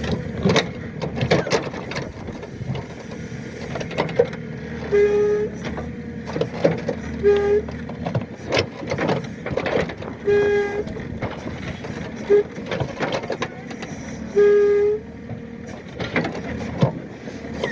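Excavator at work pulling tree stumps: the diesel engine runs steadily under many sharp knocks and cracks, with short pitched squeals several times.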